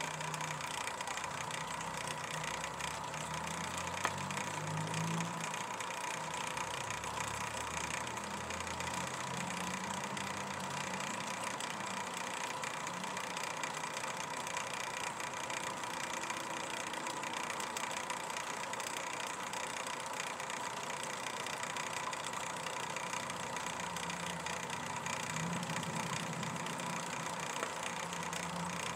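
Low, steady hum of an idling engine under a constant hiss, with a faint steady high tone; the hum is stronger at the start and again near the end.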